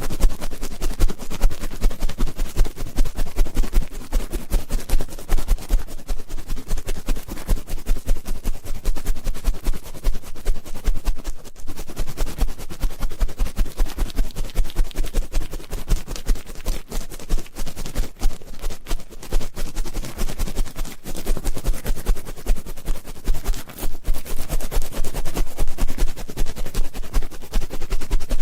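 Ear-cleaning ASMR: an ear pick scratching and rubbing right against a microphone's ear, a continuous run of rapid crackling scratches with dull low thumps.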